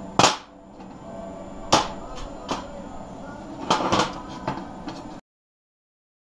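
Lengths of 50 x 50 x 6 mm steel angle being handled and set down on a steel welding table: about seven sharp metal clanks over four seconds. The sound cuts out completely about five seconds in.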